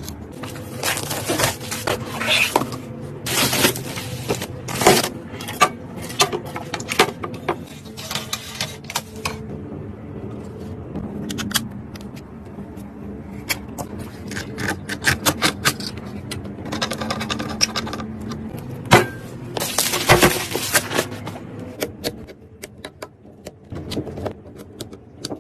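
Irregular clicks, taps and scrapes of computer hardware being handled and fitted together during a PC build, in quick clusters with short lulls between.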